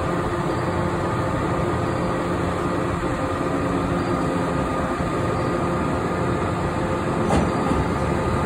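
Steady hum of a stationary green electric commuter train at the platform, with several constant tones from its onboard equipment. A second electric train is approaching along the track toward the station, and a couple of faint clicks come near the end.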